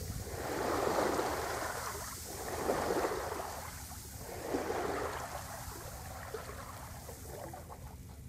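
Sea water rushing and splashing along a sailing yacht's hull as it moves through the water, swelling in surges about every two seconds. The surges are strongest in the first five seconds and ease off after that.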